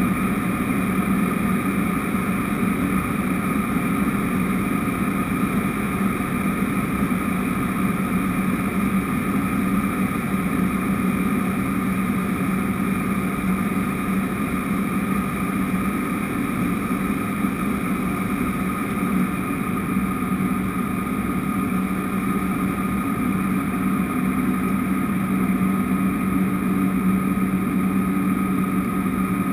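Cessna 208B Grand Caravan's Pratt & Whitney PT6A turboprop and propeller running steadily in flight, heard inside the cockpit: an unchanging low propeller hum with a steady turbine whine above it.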